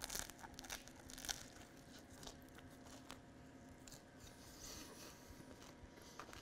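Biting into a crusty, oven-baked Italian sub: the crisp bread crust crunches and crackles sharply in the first second or so, followed by quieter chewing.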